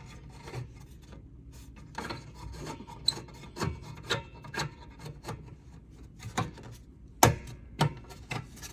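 The cover of an air compressor's pressure switch being pushed down and tightened: irregular clicks, knocks and scraping of tool on metal, with a few sharper taps near the end.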